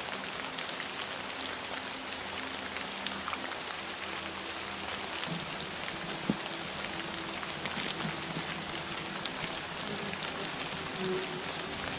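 Steady rain falling, an even hiss of many small drop ticks.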